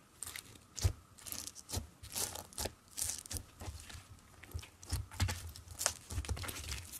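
Orange foam-bead slime (floam) being kneaded and pressed by hand: irregular crunchy crackles and pops from the foam beads, with soft squishes and low thuds as the slime is pressed down.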